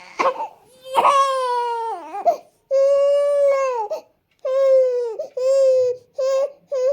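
Infant crying in a string of wails: a couple of ragged cries, then held wails of about a second each, each dropping in pitch at its end, and two short cries near the end.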